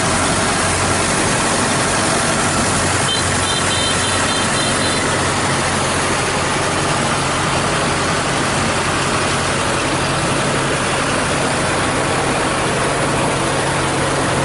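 Diesel engine of farm machinery running steadily.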